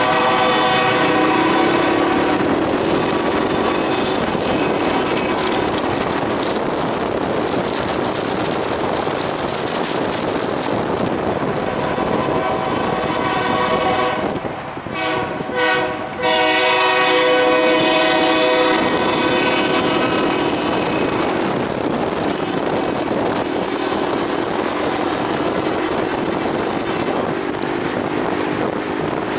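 Freight train of double-stack container cars rolling past with steady rail and wheel noise, while the locomotive's air horn sounds chords in long blasts: loudest at the start and again in the middle.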